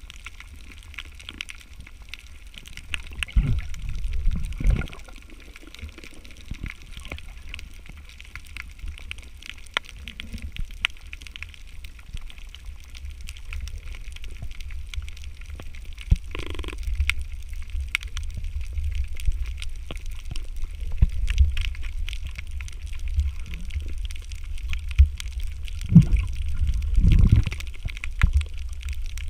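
Water sounds heard underwater on a submerged camera: a steady low rumble of moving water with scattered faint clicks. Louder low surges come about three to five seconds in and again near the end, and a brief tone about halfway through.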